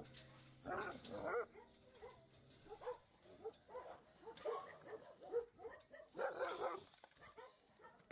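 Several dogs barking, yelping and whining in eager bursts as their feed is brought to the pen. The calls are short and repeated, busiest about a second in and again about six seconds in.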